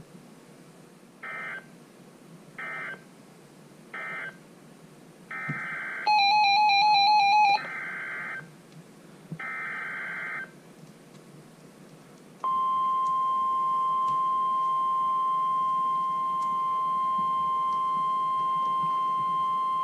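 Emergency Alert System data bursts on NOAA Weather Radio: three short screechy end-of-message bursts, then the longer screechy header bursts that open the next warning, with a loud warbling beep breaking in between them. About twelve seconds in, the steady, high NOAA Weather Radio 1050 Hz warning alarm tone starts and holds, announcing a new tornado warning.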